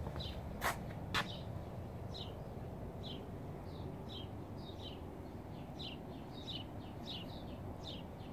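A small bird chirping over and over, short high chirps that drop slightly in pitch, several a second, over a low steady hum. Two footsteps land about a second in.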